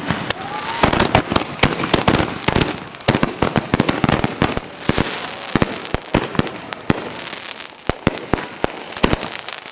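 Consumer fireworks going off: a dense, irregular run of sharp bangs and crackles, many overlapping.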